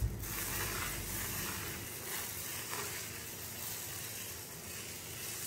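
Whole-wheat dosa batter sizzling steadily on a hot tawa as a ladle spreads it in circles.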